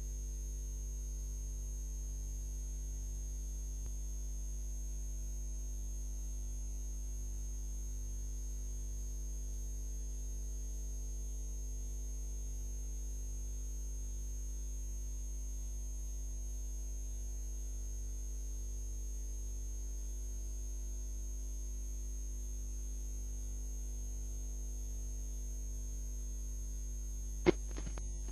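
Steady electrical mains hum with a faint high-pitched whine and no programme sound. A single sharp click about a second before the end.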